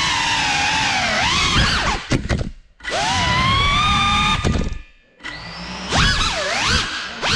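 GEPRC Cinelog 35 cinewhoop's brushless motors whining, the pitch rising and falling with the throttle. The whine cuts out twice, about two and a half and five seconds in, then comes back as quick short throttle bursts near the end.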